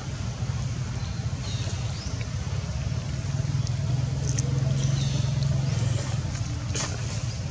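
Steady low engine-like hum of a motor running, with a few faint, short high sounds over it.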